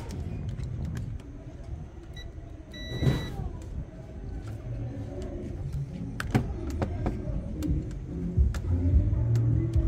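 Clicks and knocks of a washing machine motor and multimeter test leads being picked up and handled on a table, over a steady low rumble, with a short high beep about three seconds in.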